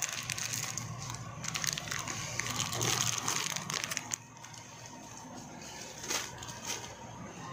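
Plastic instant-noodle packets crinkling and rustling as they are handled and taken off the shelf, busy for about four seconds, then quieter with a couple of short rustles near the end.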